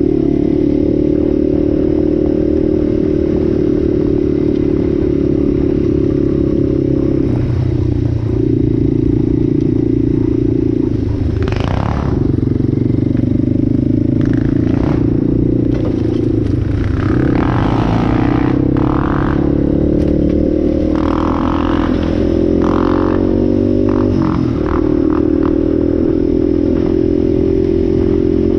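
Yamaha Raptor 700's single-cylinder four-stroke engine running under way, its pitch dipping and rising a few times with the throttle. In the middle stretch it is broken by short bursts of clatter and rattling.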